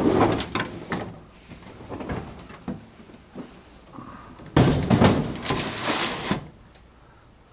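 Scrap metal being thrown off a truck: clanking and rattling of metal pieces, with a loud clatter at the start and another sudden loud one about four and a half seconds in that lasts nearly two seconds.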